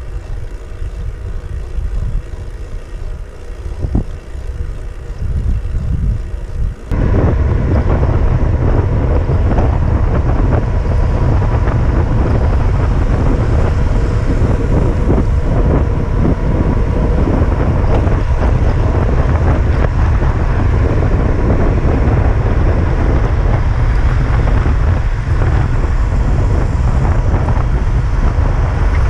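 Wind rushing and buffeting over the microphone of a bicycle-mounted camera as the bike rolls fast on asphalt. About seven seconds in it jumps suddenly to a louder, steady rush.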